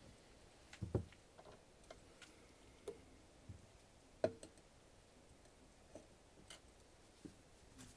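A few light knocks and clicks of a glass Erlenmeyer flask being handled and set down on a hot plate. The sharpest knock comes about four seconds in.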